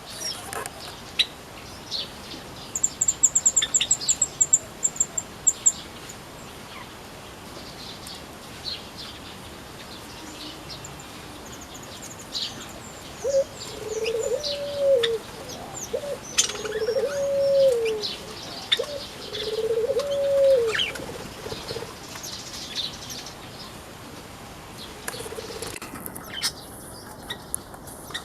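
Small aviary birds, pleci white-eyes, giving short high chirps throughout, with a fast high trill a few seconds in. In the middle a low cooing call comes three times.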